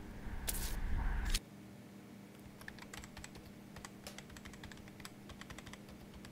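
The tail of the intro music sting, with a whoosh, cuts off suddenly about a second and a half in. Faint, irregular light clicks follow, like keyboard typing, over a low steady hum.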